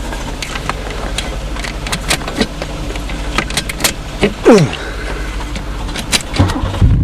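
A 3.8-litre V6 car engine being started: the starter cranks it with a run of clicks and a falling whine about four and a half seconds in, and the engine catches and runs near the end.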